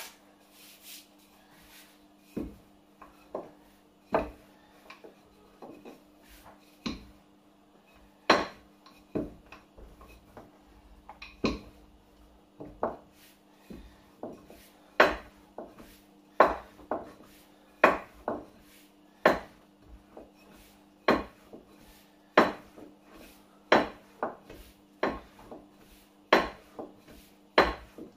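A rolling pin rolling out tortilla dough on a work surface, with sharp knocks and clacks each time it is pushed or set down, about one a second and coming faster in the second half.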